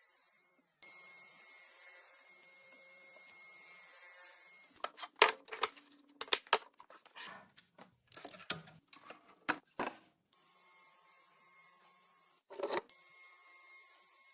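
Sharp knocks and clicks of wood and tools being handled, a cluster of them in the middle and one more near the end, between stretches of steady hiss with a faint high tone.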